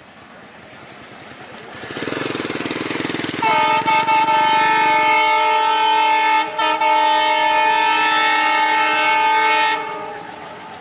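Air horn of a Bangladesh Railway WDM-3A (Alco) diesel locomotive sounding one long blast of about six seconds, several pitches at once, broken briefly twice. A rushing noise of the approaching train rises just before it.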